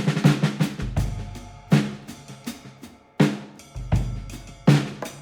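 Background music driven by drums: heavy kick and snare hits with low booms about every second and a half.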